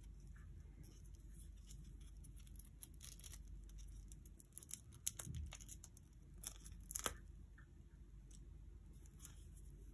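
Clear plastic protective film being peeled off a watch strap's metal buckle, crinkling and crackling softly in short bursts, loudest about three seconds in and again around seven seconds. A single sharp click comes near the end.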